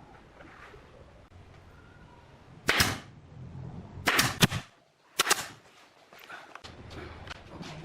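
Three loud, sharp knocks about a second apart, the middle one doubled, with fainter clicks and ticks between and after them.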